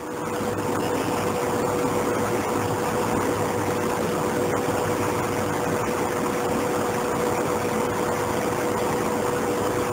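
Steady mechanical hum and hiss with a constant mid-pitched tone, even in level throughout.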